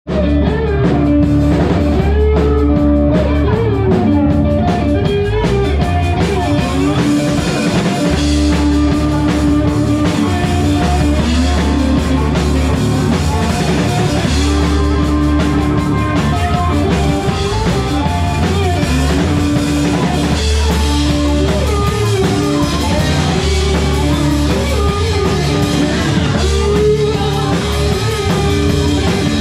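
Small live rock band playing: drum kit, bass and electric guitar, with a harmonica played close by whose long held notes carry over the band.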